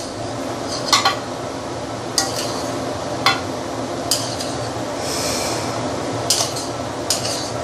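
Wire-mesh skimmer clinking against a stainless steel wok as prawn shells are scooped out of broth at the boil, a sharp clink every second or so over the steady bubbling of the broth.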